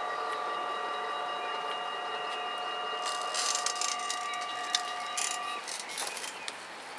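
Mechanical bells of a Dutch level crossing ringing steadily as the barriers rise, then stopping about five and a half seconds in. From about three seconds in, irregular clicking and rattling joins them.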